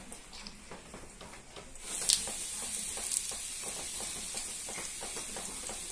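Homemade red chilli powder poured into hot oil in a steel pot, starting to sizzle about two seconds in and then sizzling steadily as the chilli fries in the oil.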